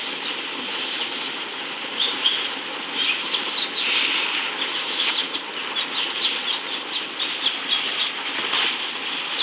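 Small birds chirping in quick short notes over a steady mechanical drone.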